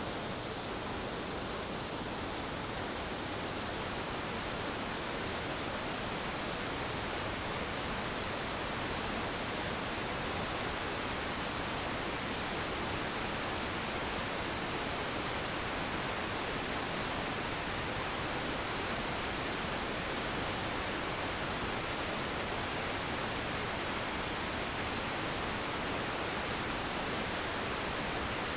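Steady, even rushing noise of a waterfall, much like white noise, unchanging throughout.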